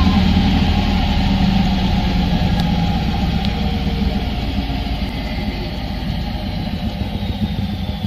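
Washing machine on its 1000 rpm spin cycle, heard from inside the drum: a dense, steady rumble that slowly eases in level, with a thin high whine that falls in pitch near the end.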